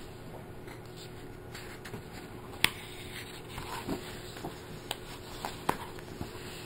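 Pages of a thick-paper colouring book being handled and turned by hand: soft paper rustles and a few sharp paper flicks and taps, with a faint steady hum underneath.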